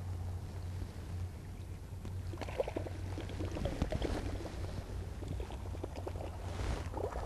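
Water splashing and gurgling at the side of the boat, starting about two and a half seconds in and going on in irregular splashes: a muskie rolling on a topwater lure during the figure-8. A steady low hum runs underneath.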